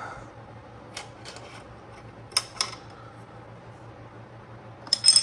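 Computer hardware being handled while a PCIe card is fitted into a Mac Pro: a few sharp plastic and metal clicks and taps, the loudest cluster near the end, over a steady low hum.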